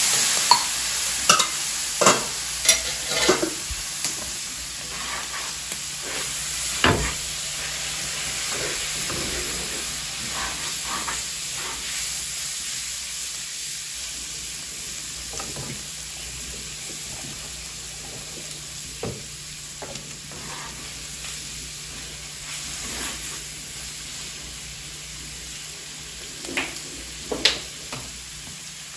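Ground pork and onion sizzling as they fry, the sizzle loudest at first and slowly dying down. A cooking utensil knocks and scrapes against the pan several times in the first few seconds and twice more near the end.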